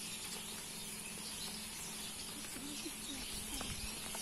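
Steady outdoor background of insects chirping, with faint scattered bird calls and a brief faint voice a little past halfway.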